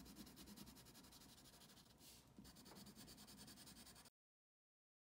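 Faint scratching of a colored pencil shading on paper in quick back-and-forth strokes. It cuts off to dead silence about four seconds in.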